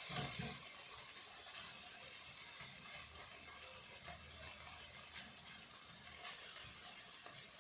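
Shredded chicken and garlic sizzling in a frying pan as they brown, a steady hiss with a few small ticks.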